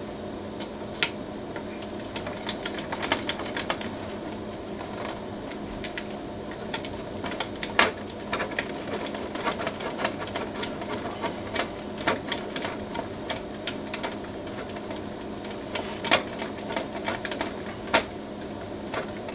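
Irregular small metallic clicks and ticks of an Allen key against the heatbed's mounting screws as Nylock nuts are threaded and tightened onto them, over a steady hum.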